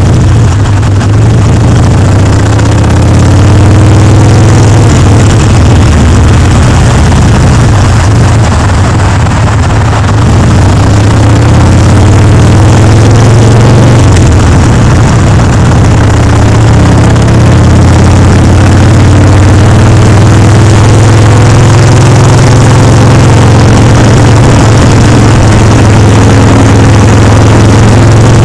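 Harley-Davidson Sportster Seventy-Two's 1200 cc V-twin running loud through its pipes at riding speed, its note drifting up and down a little with the throttle. Heavy wind noise on the microphone runs under it.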